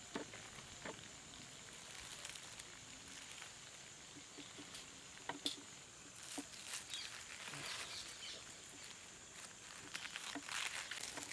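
Dry, charred banana leaves rustling and crackling as a leaf-wrapped parcel is peeled open by hand, with scattered sharp clicks and crinkles that grow busier in the second half.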